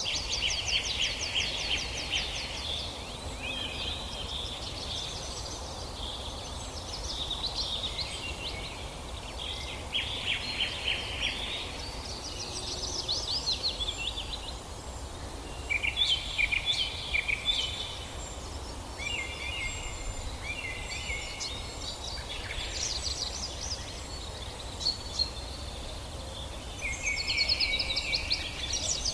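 Songbirds singing in a forest: phrases of rapid trilled notes repeat every few seconds, several birds overlapping, over a faint low background rumble.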